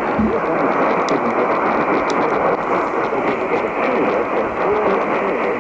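Radio broadcast heard through heavy static: a steady hiss with a faint voice buried beneath it, the sound cut off above the upper voice range as on a small radio receiver.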